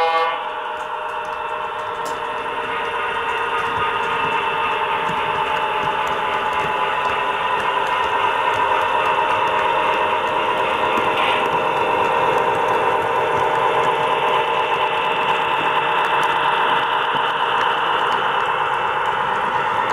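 Sound-equipped HO scale EMD F3A model locomotive's DCC decoder playing a diesel engine running through its small onboard speaker as the locomotive moves, growing louder over the first few seconds and then holding steady.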